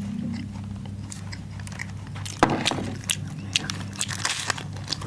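Kitchen sounds: a steady low electric hum under scattered crackling clicks, with one sharp knock about two and a half seconds in.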